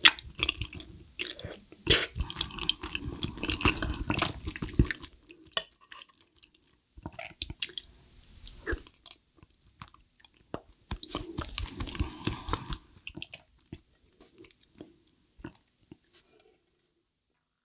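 Close-miked eating of creamy rose cheese pasta: wet chewing and mouth sounds with small sharp clicks. They are busiest in the first five seconds and again about twelve seconds in, then fall quiet near the end.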